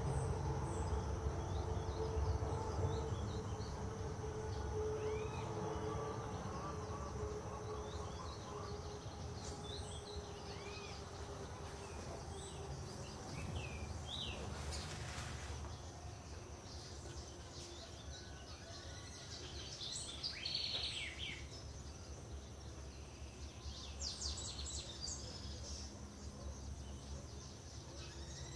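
Scattered short bird chirps and calls over a steady high insect drone and a low rumble, with bursts of rapid chattering calls about two-thirds of the way through and again near the end.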